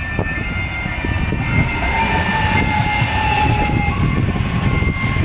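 4000 class electric multiple unit passing close by, its wheels and bogies rumbling on the track. About two seconds in, a whine falls slowly in pitch as the train slows on arrival.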